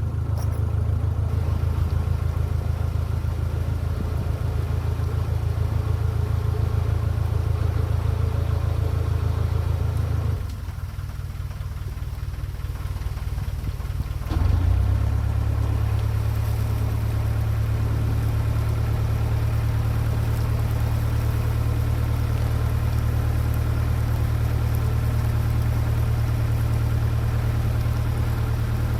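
Narrowboat diesel engine running steadily with a low, even drone. About ten seconds in it drops away and runs quieter for a few seconds, then comes back louder and steady again.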